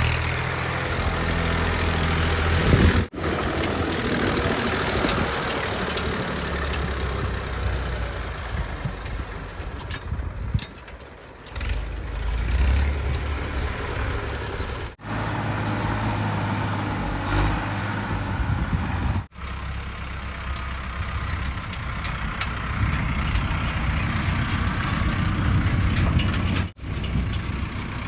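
JCB 3DX backhoe loader's diesel engine working, rising and falling in level, with a few sudden brief breaks in the sound.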